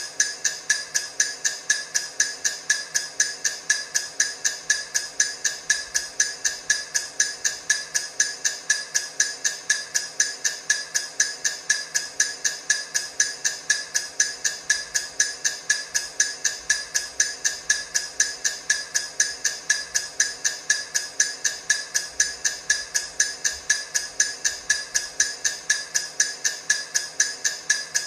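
Countdown timer ticking sound effect: rapid, perfectly even clock-like ticks, several a second, without a break.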